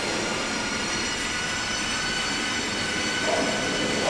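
Steady mechanical drone with several thin, high whines held steady over it, unchanging throughout.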